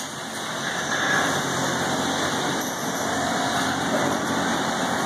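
A steady mechanical rumble with a hiss, even in level, of the kind an idling engine makes.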